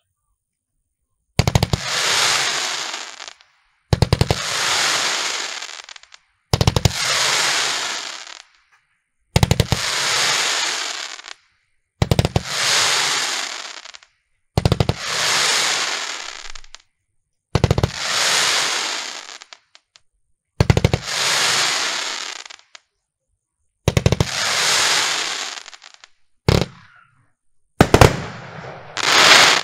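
A 50-shot fanned consumer firework cake firing in about a dozen volleys, roughly every two and a half to three seconds. Each volley is a quick cluster of launch bangs followed by about two seconds of fading hiss as the strobing mines and time rain burn out. Near the end comes a short volley and then the loudest one.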